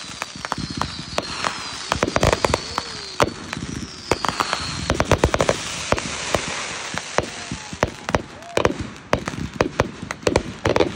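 Fireworks display going off: a rapid, irregular string of bangs and crackles from exploding shells, with thin whistles falling in pitch at the start and again about four seconds in.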